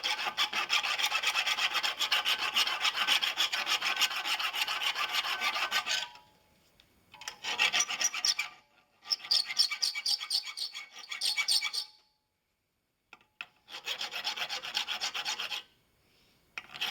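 Flat file, on its rough side, rasping the ragged slot in a brass hinge tube in fast back-and-forth strokes. It runs for about six seconds, then comes in three shorter spells with brief pauses between them.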